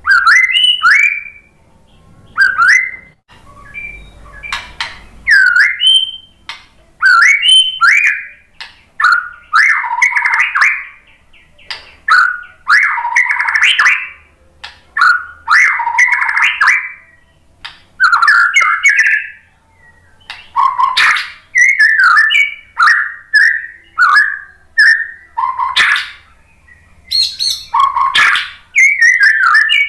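White-rumped shama singing: a long run of short whistled phrases, many sliding up or down in pitch, broken by several fast scratchy chattering runs and sharp clicks.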